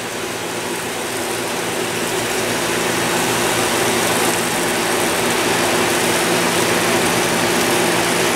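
Eggs, steak and vegetables sizzling steadily in a nonstick skillet, slowly growing louder, over a steady low hum.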